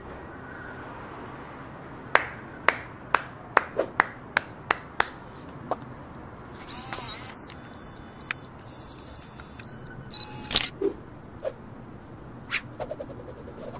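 A run of about eight sharp clicks, roughly two or three a second, followed a couple of seconds later by a string of short, evenly spaced high-pitched beeps.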